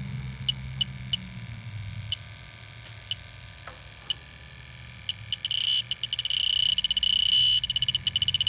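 A Fieldpiece SRL8 heated-diode refrigerant leak detector ticks about once a second. About five seconds in, its beeps speed up into a fast run and a steady high tone, then break back into rapid beeps. It is alarming on refrigerant from a slow leak at the Schrader valve.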